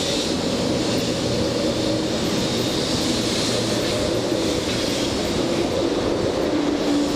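Shinkansen train moving along the platform, with a steady rolling rumble of the wheels and a constant hum from its motors.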